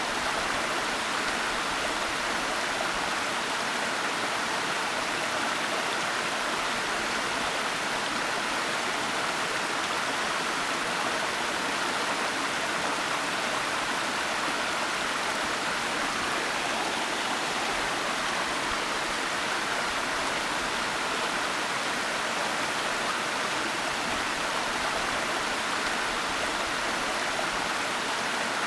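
Waterfall: water falling in a steady, unbroken rush, with no changes in level and no distinct splashes.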